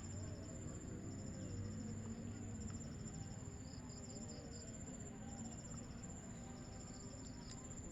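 Crickets trilling steadily: one continuous high-pitched note, with quick pulsed chirps just below it.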